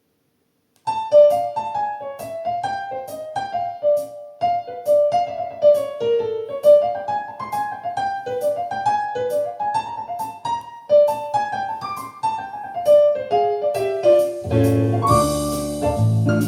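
Piano music played back through Tannoy Stirling GR loudspeakers: a solo piano melody starts about a second in, and a fuller accompaniment with low bass and drums joins near the end.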